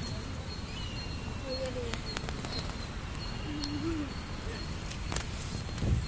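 Outdoor ambience with birds calling: a few short low gliding calls and a thin high note repeating on and off, over a low rumble on the microphone and a few light clicks.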